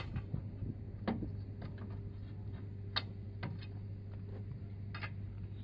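Scattered sharp metallic clicks and taps, a second or two apart, from hand tools worked against the steel rim of a mud-caked mining dump-truck wheel during tyre removal, over a steady low hum.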